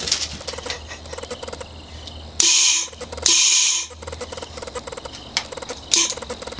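Pneumatic pumpkin cannon's ASCO solenoid valve dumping compressed air in hissing blasts. Two half-second bursts come about a second apart, a little over two seconds in, and a shorter burst comes near the end.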